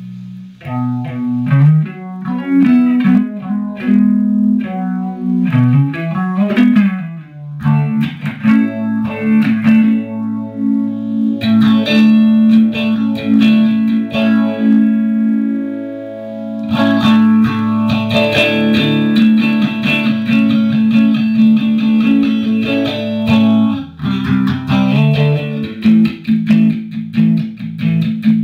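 Fender Stratocaster electric guitar played through an MXR Phase 90 phaser into a blackface Fender Bassman amp with a 2x12 cabinet, picking single notes and chords with the phaser engaged. There is a string bend about six seconds in and longer ringing chords later on.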